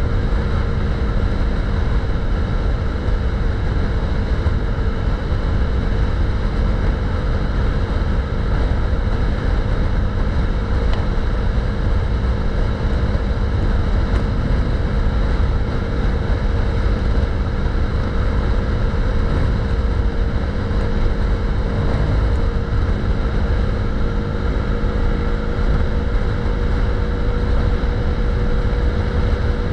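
2016 KTM 390 motorcycle's single-cylinder engine running steadily while riding at an even speed, its pitch holding level, with a dense low rush of wind and road noise underneath.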